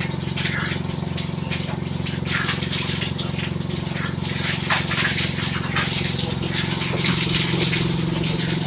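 Water gushing and splashing in irregular bursts as a pig pen and its pigs are washed down, over a steady motor hum.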